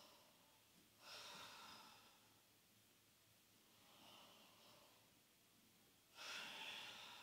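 Faint, slow breathing from a person doing yoga: three soft breaths about every two and a half seconds, the last a little louder.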